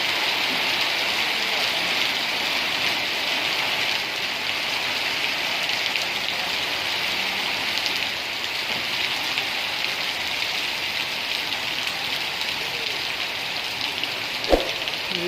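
Steady rain falling, an even hiss of many drops, with a single sharp knock near the end.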